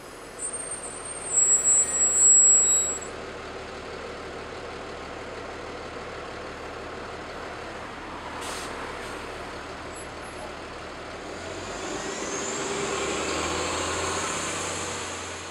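City transit bus pulling up to a stop, with loud brake and air-brake noise in the first few seconds, then idling with a short air hiss about halfway through. Near the end its engine swells with a rising whine as it pulls away.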